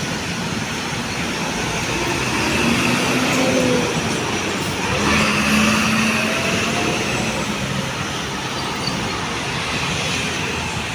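Steady noise of road traffic passing, with faint engine hum that rises and falls.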